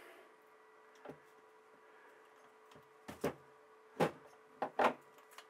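A handful of small, sharp clicks and knocks as the pieces of an interlocking puzzle are handled and knocked together, the last few close together, over a faint steady hum.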